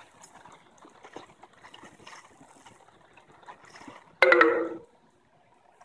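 Faint running river water with small scattered clicks, then a brief, loud pitched sound a little past four seconds in.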